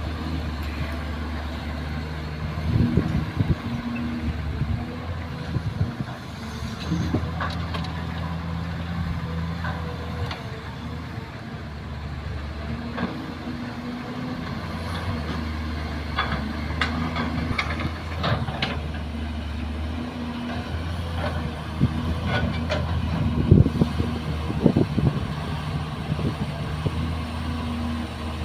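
Kobelco hydraulic excavator's diesel engine running under load, its note rising and falling in stretches as the machine digs and swings. Scattered knocks and clanks of the bucket and earth come through, loudest about twenty-three to twenty-five seconds in.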